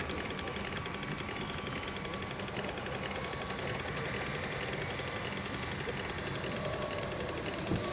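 A small motor running steadily, with a faint steady whine, over a background of outdoor noise.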